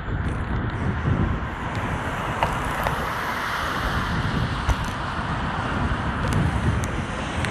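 Wind buffeting the microphone on a moving bicycle, with road and traffic noise whose hiss swells and fades in the middle, and a few light clicks.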